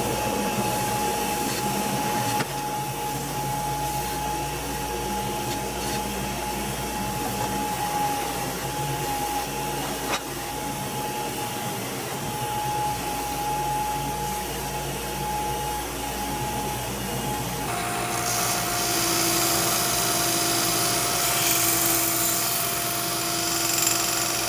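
An electric power tool running steadily with a constant hum, working on the hatchet. About 18 seconds in the hum drops slightly in pitch and more hiss comes in.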